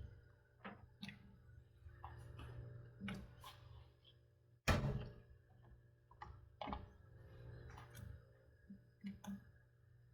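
Kitchen handling sounds: scattered light clicks and knocks, with one sharper, louder knock about halfway through, over a steady low hum.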